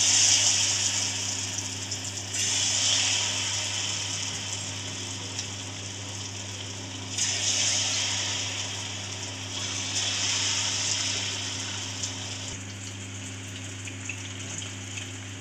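Batter-coated paneer pieces deep-frying in hot oil in a steel kadhai: a steady bubbling sizzle. It swells four times as more pieces go into the oil, then settles back each time.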